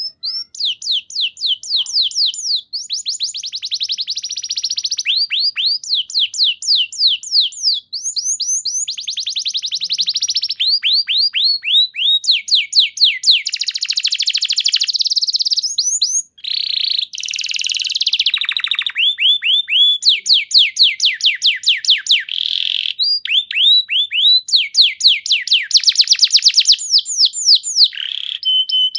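Domestic canary singing a continuous song: fast trills of rapidly repeated, downward-sweeping notes, switching to a new trill every second or two, with a brief held whistled note near the end.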